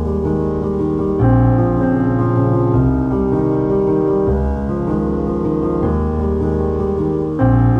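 Background piano music, with the chords changing about every second and a half.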